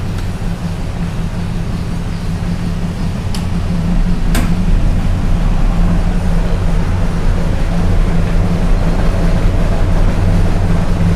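Steady low mechanical hum of a large cabinet egg incubator running, with two sharp clicks about three and four seconds in as its door is unlatched and opened; the hum grows louder once the door is open.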